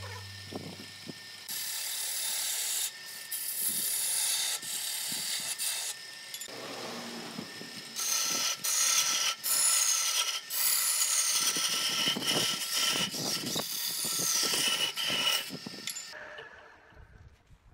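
Wood-turning gouge cutting into a wooden vase blank spinning on a lathe, a rough scraping chatter in uneven passes with short breaks. It dies away near the end.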